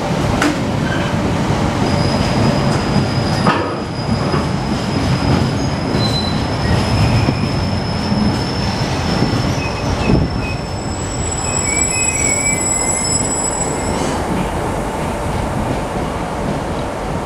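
Empty freight flat wagons hauled by Class 86 electric locomotives rolling past on curved track: a steady low rumble and rattle, with high wheel squeal from about two seconds in until about fourteen seconds, and a couple of clanks.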